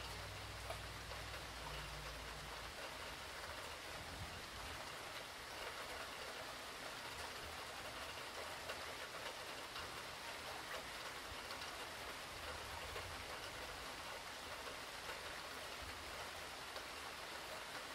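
Steady hurricane rain, a constant even hiss with scattered single drops ticking on a surface.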